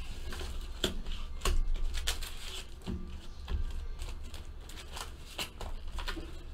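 Foil-wrapped 2016 Donruss Optic baseball card packs crinkling and rustling as they are handled and pulled from their cardboard box, with an irregular run of short crackles and clicks.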